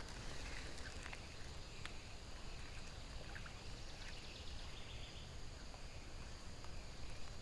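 Faint, steady outdoor background by a calm river: a low even hiss with a few faint ticks and a brief faint high chirp.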